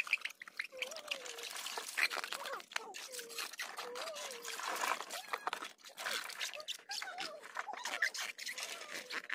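Water trickling and splashing with scattered small knocks as hands rub and rinse a plastic toy dump-truck bed in shallow water.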